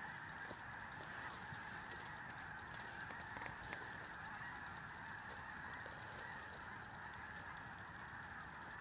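Faint, steady wash of honking from a distant flock of geese.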